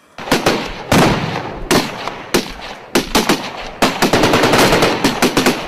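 Loud automatic gunfire in repeated bursts, with single shots and short strings at first and a long rapid burst about four seconds in.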